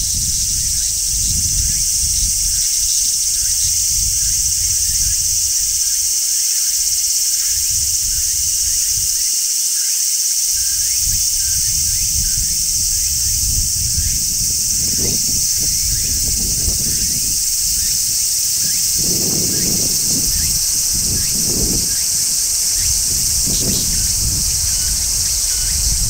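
Cicadas shrilling in one continuous, steady high-pitched buzz. A low rumble comes and goes beneath it, more in the second half.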